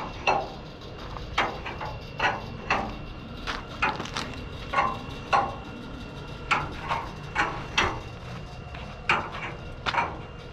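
Chain and ratchet lever hoist being worked by hand to pull on a truck chassis frame: a series of sharp metal clanks and clinks, irregular and often in pairs, about two a second.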